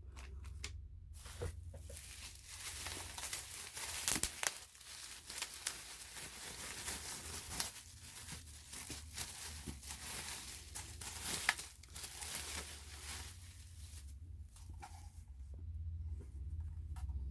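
Plastic packaging being torn open and crinkled by hand, an irregular crackling with scattered sharp clicks that eases off near the end.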